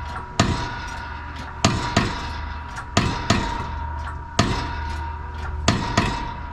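Hammer blows on metal: about eight sharp strikes at uneven intervals, some in quick pairs, each with a brief ring, over a steady ringing tone.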